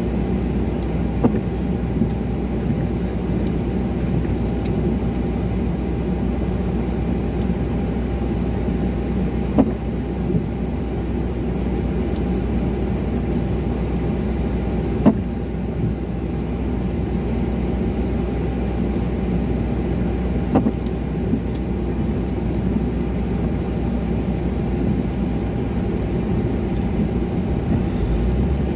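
Car cabin noise while the car idles in traffic: a steady low engine hum and rumble, with a few scattered sharp clicks.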